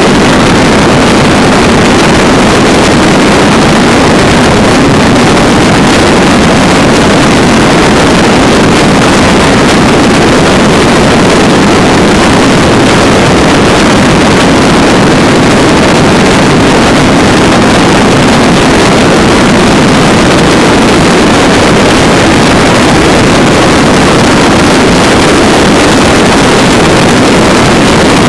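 Loud, steady rush of wind and road noise over a motorcycle's engine droning at highway cruising speed, heard from the moving bike.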